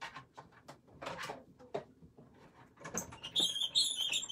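Die-cutting machine being run, with a few clicks and knocks, then a loud high-pitched squeak from the machine starting about three seconds in.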